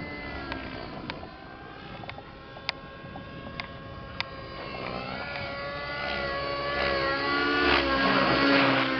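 Radio-controlled model helicopter in flight: a steady high engine-and-rotor whine with several pitched tones. It grows louder over the second half as the helicopter comes in low and close, and its pitch bends as it passes near the end. A few sharp clicks sound in the first half.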